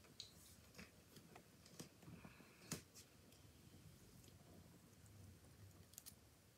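Faint, irregular crunches and clicks of a Brazilian white knee tarantula chewing a praying mantis, the mantis's body cracking under its fangs. The sharpest crack comes a little under three seconds in.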